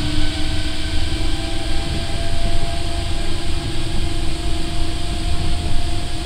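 Osaka Monorail car heard from inside the cabin while running between stations: a steady low rumble from its rubber-tyred running gear on the track beam, with a steady motor whine.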